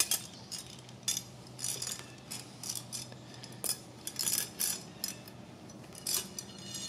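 Handheld tube bender and brake line clinking as the line is worked through the bender by hand: irregular short metallic clicks, some close together, with gaps between them.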